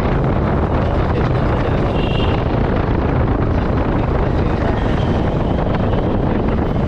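Wind buffeting the microphone over a Hero Splendor's small single-cylinder engine running as the motorcycle is ridden slowly, a steady rumbling noise.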